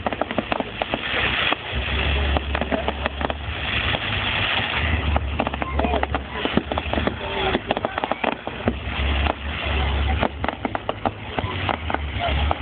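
Fireworks display: dense pops and crackles from bursting shells and crackling stars, going on throughout, with spectators' voices mixed in.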